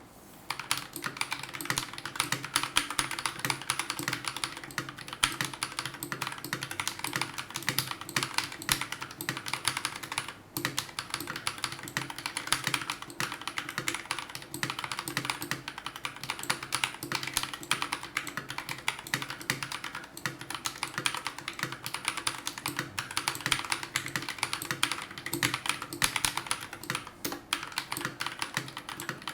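Continuous typing on a Royal Kludge RK G68 mechanical keyboard with stock, unlubed Akko Matcha Green linear switches and double-shot PBT keycaps: rapid, dense key clacks with a brief pause about a third of the way in.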